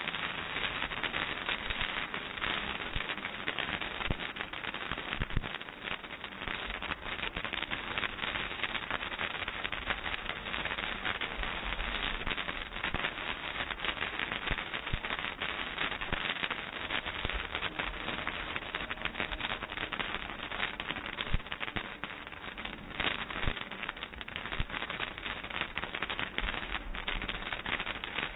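Ground firework spraying sparks, a dense continuous crackle with a few louder pops.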